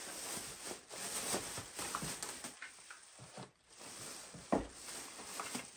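Thin plastic shopping bags rustling and crinkling as groceries are pulled out of them, with small crackles throughout and one sharper knock about three-quarters of the way through.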